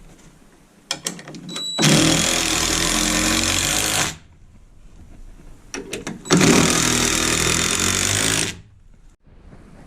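Cordless power driver driving two screws into a wooden 2x3 stud guide, each run lasting about two seconds, with a few clicks before each as the screw is set.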